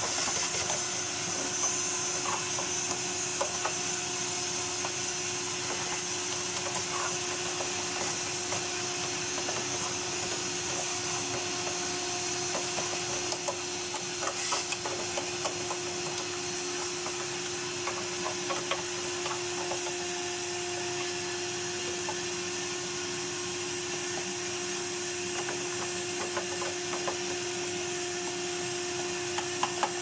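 A vacuum cleaner runs steadily with a constant hum and suction hiss while its crevice nozzle draws dust out of the plastic body shell of a vintage Hoover upright. Scattered light clicks and scrapes come from the nozzle and a paintbrush working against the plastic.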